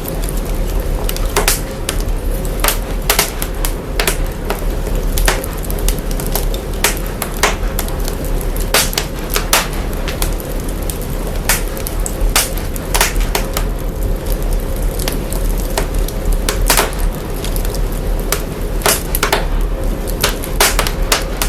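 Fire crackling, put through heavy signal processing: irregular sharp pops and snaps, a few to several a second, over a constant deep sub-bass rumble and a steady hum.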